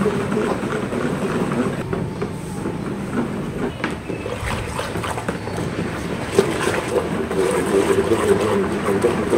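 A foamy liquid is stirred by hand with a plastic pipe in a plastic bucket: continuous sloshing and churning, with the pipe now and then knocking and scraping against the bucket wall.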